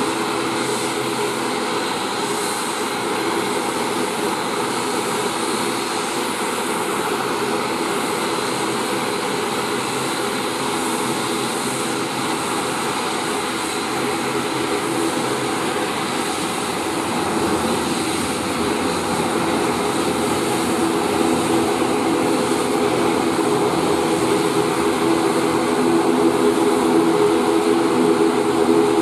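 Twin Pratt & Whitney PW127M turboprops of an ATR 72-600 running as it taxis: a steady propeller drone with a few held tones. It grows louder over the last ten seconds or so.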